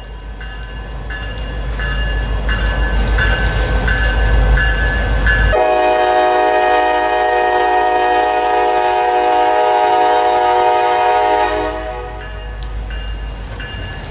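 Freight train of empty intermodal well cars rolling past, with a heavy steady rumble from the wheels and thin high squeals that come and go. About five and a half seconds in, a locomotive air horn sounds one long chord for about six seconds and cuts off, leaving the quieter rumble of the passing cars.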